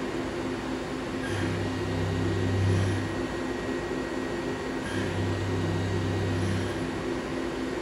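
CNC milling machine running a toolpath on a hardened 60 HRC steel pin: a steady machine hum, with a deeper drone that comes in twice for about a second and a half each time.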